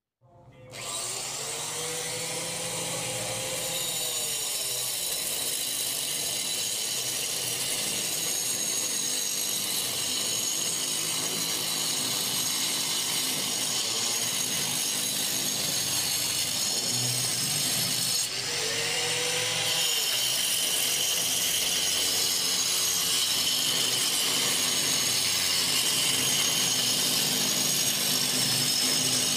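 Handheld angle grinder cutting a chase into a brick wall: a continuous high-pitched whine and grinding through the masonry. The sound comes in abruptly at the very start and dips briefly about 18 seconds in.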